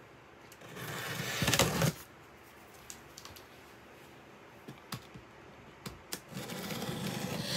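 A snap-off utility knife and hands on a large cardboard shipping box: a rustling scrape about a second in, a few scattered light clicks, then a growing scrape near the end as the blade starts slitting the packing tape.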